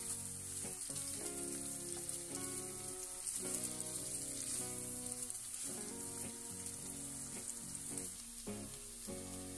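Diced chicken breast sizzling in hot oil in a nonstick frying pan as the pieces are stirred and turned with a spatula, over soft background music.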